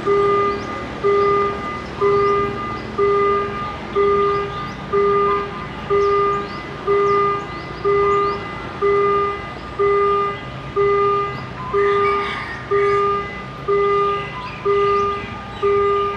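Railway level-crossing warning bell ringing about once a second, each electronic tone striking and fading, signalling an approaching train.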